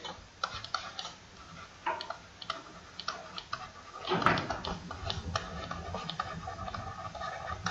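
Light, scattered ticks and taps of a stylus writing on a pen tablet or interactive whiteboard. About four seconds in, a steady low background noise grows louder beneath the ticks.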